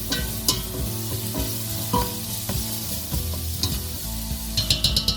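Onion, cubed potatoes and ground coriander frying in oil in a saucepan, sizzling steadily while being stirred, with the utensil clicking and scraping against the pan. A quick run of taps comes near the end.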